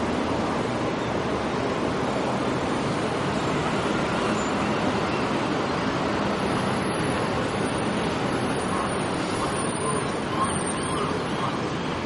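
Steady wash of distant city traffic heard from high above the streets, a constant even hum with no single vehicle standing out. A few faint high chirps come in near the end.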